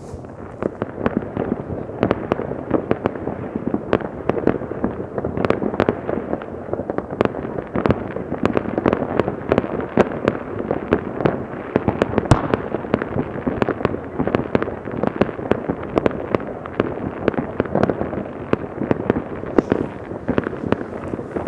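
Many distant fireworks and firecrackers going off together across a town: a dense, unbroken crackle of pops and bangs with no pause.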